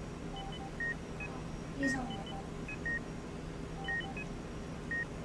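Electronic beeps: a short pattern of high beeps at a few different pitches, repeating about once a second. There is one light click about two seconds in.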